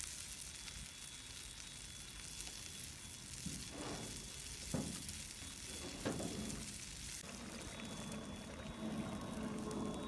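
Spicy broth with fish, tofu and duck blood simmering and sizzling in a covered cast-iron wok, a steady hiss with a few louder pops in the middle. Near the end a metal spatula stirs the pan.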